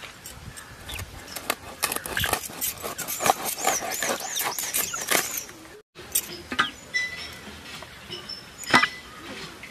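A large knife chopping and cutting through a whole catla fish on a stone slab: a rapid run of knocks and scrapes for about five seconds, then a few single knocks. A bird warbles during the chopping and chirps in the second half.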